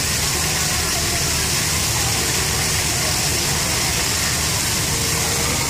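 Steady hiss and splashing of a fountain's water jets falling back into the basin, with a low rumble of road traffic underneath.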